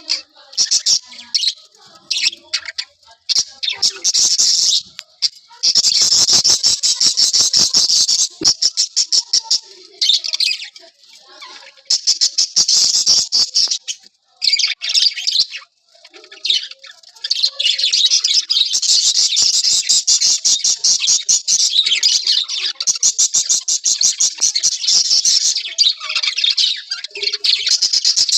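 A flock of small caged parrots chattering, with fast high chirps overlapping almost without pause. There are brief lulls about halfway through, then near-continuous chatter.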